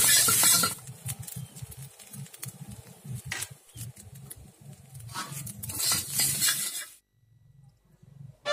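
Metal spatula scraping and clinking against a wok as rice is stir-fried, with loud sizzling for the first second and again shortly before the end. The sound stops about a second and a half before the end.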